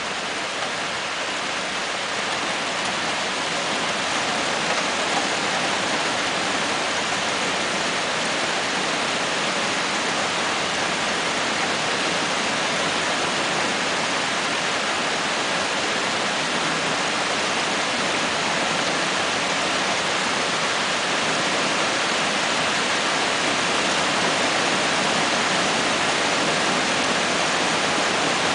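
Steady rain falling, an even hiss that holds throughout and grows slightly louder.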